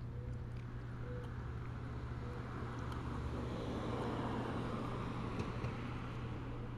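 A car passing on the road: its tyre and engine noise swells to a peak a few seconds in and then fades away, over a steady low hum.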